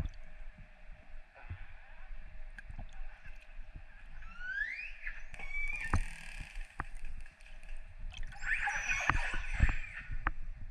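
Killer whales calling, recorded underwater: a rising call about four and a half seconds in, then a dense cluster of calls near the end, with scattered clicks over steady water noise.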